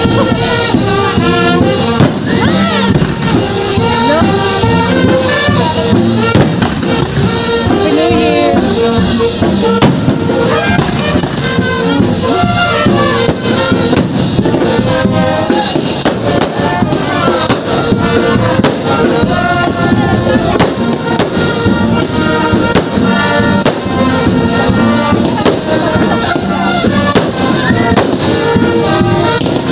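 Aerial fireworks going off again and again, a rapid string of bangs and crackles, with music playing under them.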